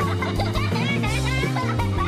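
Background music with a bass line whose held notes change every fraction of a second, and a wavering melody line higher up.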